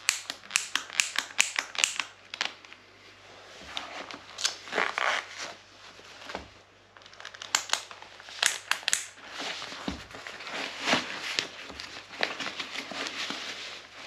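Hook-and-loop straps on cycling shoes ripping open and pressing shut in quick crackly bursts, mostly in the first two seconds and again about eight seconds in, between rustling and crinkling of stretchy overshoes being handled and pulled on over the shoes.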